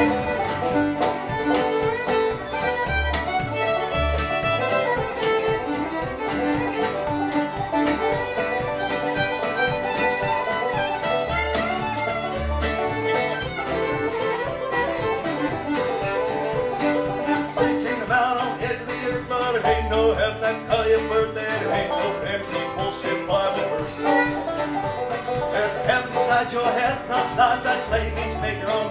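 A bluegrass string band playing: banjo, acoustic guitar, fiddle and upright bass together, with the fiddle prominent.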